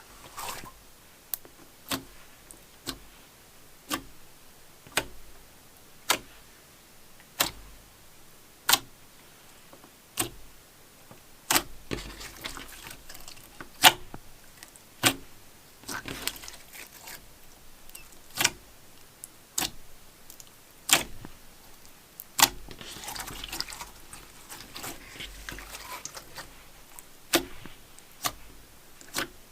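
Slime being handled, with sharp wet pops about once a second as air pockets in it burst, and stretches of crackly squelching while it is squished.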